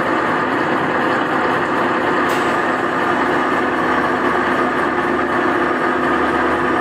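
Bhambar M5BSP all-geared, direct-coupled horizontal milling machine running steadily, its motor and gearbox giving a constant hum with a steady whine.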